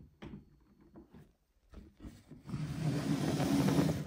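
A few light knocks as the metal case of a Meratronik V543 nixie bench multimeter is gripped and moved. This is followed by the case scraping across the tabletop for about a second and a half as it is turned round.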